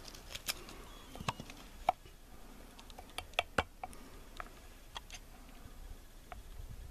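Knife blade shaving curls off a stick of resin-rich pine fatwood: irregular scraping clicks, with a short cluster of sharper ones about three and a half seconds in.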